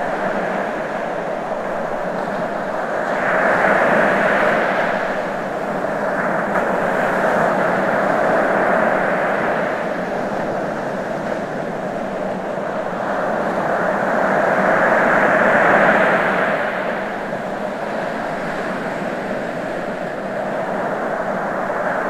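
Ocean surf: a steady wash of waves that swells louder twice, about four seconds in and again about fifteen seconds in.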